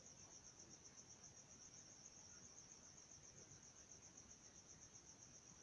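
Near silence, with a faint, steady, high trill of crickets.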